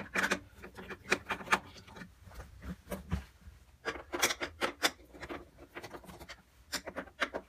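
Hand screwdriver tightening screws that hold a refrigerator's bottom freezer door to its drawer brackets: a string of short, irregular clicks and scrapes.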